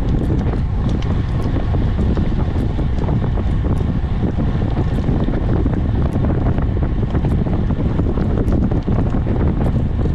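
Wind buffeting the microphone of a camera on a moving road bike: a loud, steady low rumble, with faint ticks and rattles from the bike over the road.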